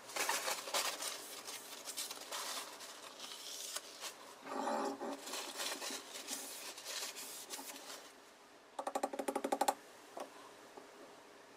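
Whetstone rubbing along a knife's steel edge in repeated strokes, a rasping scrape. About nine seconds in comes a quick run of about ten short strokes, and then the stroking stops.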